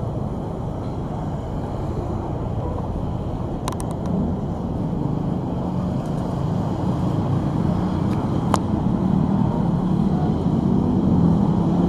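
Steady road traffic of cars, motorbikes and buses passing: a low rumble that grows louder through the second half. Two short, sharp clicks stand out, about four and eight and a half seconds in.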